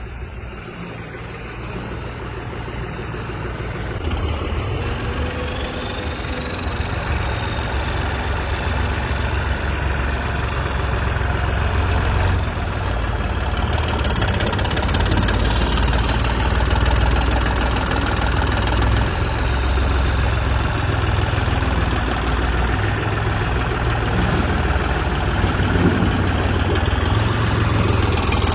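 Modified tractor's diesel engine running with a heavy, knocking low rumble, growing gradually louder.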